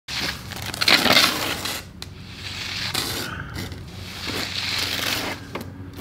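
Steel hand trowel scraping across the surface of freshly poured wet concrete in a few long strokes, the loudest about a second in.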